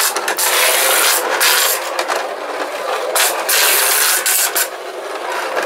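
Technofix tinplate clockwork roller-coaster toy running, its cars rattling along the tin track with a loud, continuous rasp and scattered clicks.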